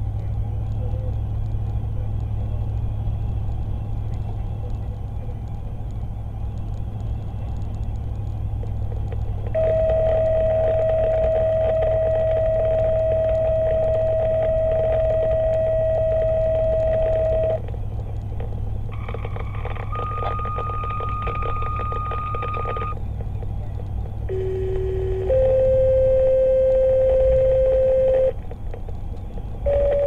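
Fire-department paging tones over a two-way radio: one long steady tone of about eight seconds, then a higher tone, then a short low tone stepping up into a longer one, the two-tone alert that dispatches a fire company. Under them runs the steady rumble of the vehicle and road.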